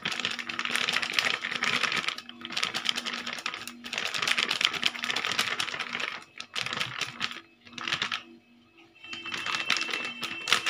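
A utensil scraping and clicking against a steel bowl as gram flour is worked into curd, in rapid scratchy runs of about two seconds with short pauses between them.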